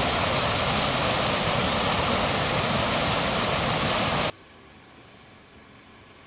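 Stream water rushing over a small cascade, a steady hiss that cuts off suddenly about four seconds in, leaving only a faint hiss.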